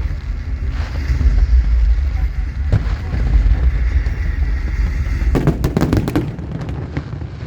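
Fireworks display: a deep, continuous rumble of bursting shells with a few sharp bangs, then a quick run of crackling reports about five and a half seconds in.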